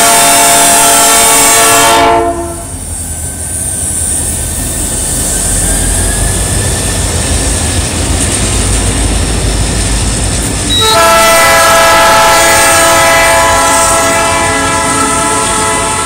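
Air horn of Ferromex diesel locomotives running light: a long blast that stops about two seconds in, then the deep rumble of the diesel engines passing close by, and a second long horn blast from about eleven seconds in that fades near the end.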